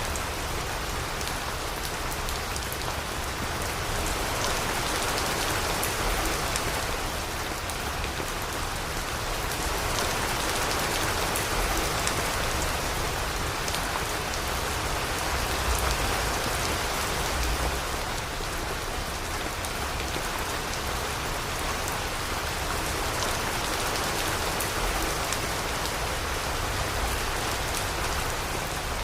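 Steady rain falling, an even hiss dotted with many small drop ticks, swelling and easing gently every few seconds.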